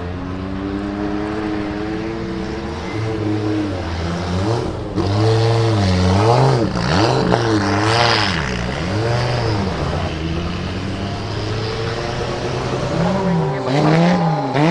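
Audi 200 Quattro Trans-Am race car's turbocharged 2.1-litre five-cylinder engine running under load, its pitch fairly steady at first, then rising and falling again and again as it is revved and shifted, loudest in the middle.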